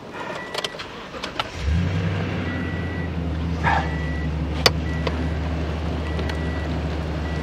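Pickup truck engine starting about a second and a half in and settling straight into a steady idle. A thin electronic chime from the cab sounds on and off, with a few clicks and one sharp click about two-thirds of the way through.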